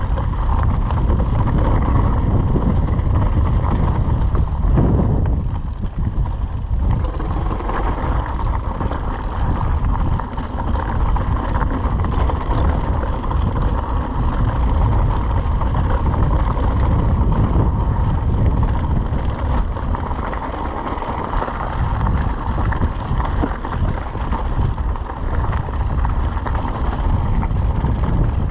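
Mountain bike descending a dirt singletrack at speed: a steady loud rush of wind buffeting the action camera's microphone, mixed with tyre rumble and small clicks and rattles from the bike over rough ground.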